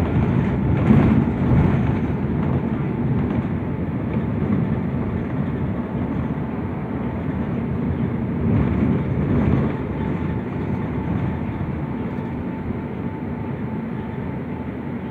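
New Flyer transit bus driving, heard from inside the passenger cabin: a steady low rumble of engine and road noise with a faint steady whine. It grows louder and rattlier about a second in and again around nine seconds in.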